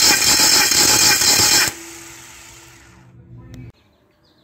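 Starter motor cranking a 2.0-litre 16-valve Neon four-cylinder engine with its spark plugs out for a compression test, a steady whirring that cuts off about a second and a half in. A fading low hum follows, then near silence.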